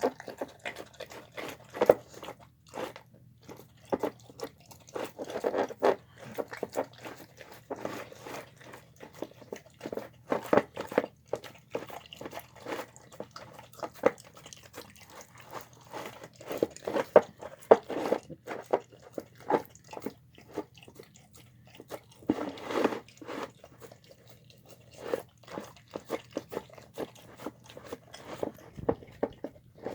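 A dog eating chicken with rice and beans: quick, irregular crunching and chewing bites, with short pauses between mouthfuls.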